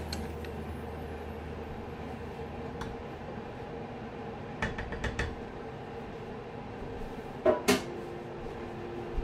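Wooden spoon stirring in a saucepan of gravy, with a few light clicks about halfway through and two sharp knocks of the spoon against the pan near the end, over a steady background hum.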